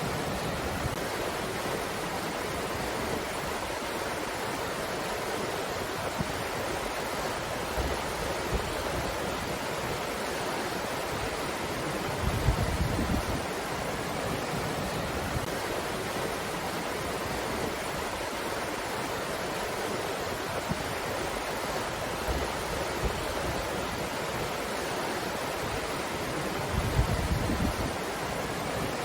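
Steady rushing of a breeze, with two brief low rumbling gusts against the microphone, about twelve seconds in and near the end.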